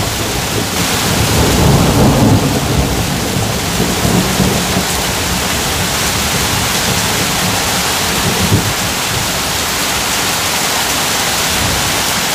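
Heavy thunderstorm downpour: a dense, steady roar of rain loud enough to drown out a running camp stove, with thunder rumbling low about two seconds in.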